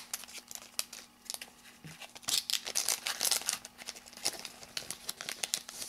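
Foil trading-card booster pack wrapper crinkling and being torn open by hand, a run of sharp crackling rustles that is busiest about two to three and a half seconds in.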